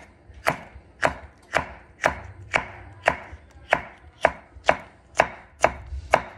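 Knife chopping a red chili pepper on a board: a steady series of sharp chops, about two a second.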